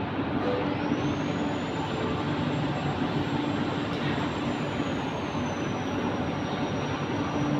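Steady industrial machinery noise in a ferroalloy furnace plant: a continuous rumble with a steady low hum, and a faint high whine that rises about a second in and later eases lower.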